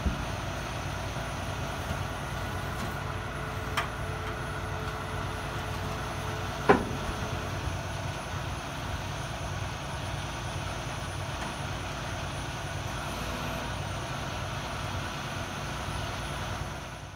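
A heavy truck's diesel engine running steadily, with a light click about four seconds in and one sharp clank a few seconds later.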